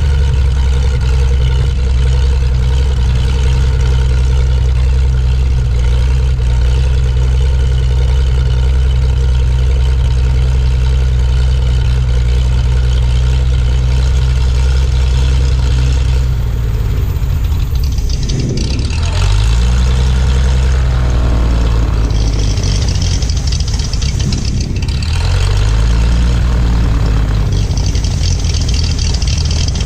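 Zenith STOL 750 light aircraft's engine and propeller running at low taxi power. The pitch holds steady for the first half, then dips and rises again twice as the throttle is eased back and opened.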